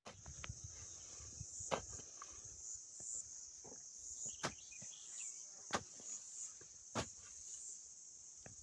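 A hand hoe chopping into the soil between potato rows, about five sharp strikes a second or so apart. Insects chirr steadily in the background.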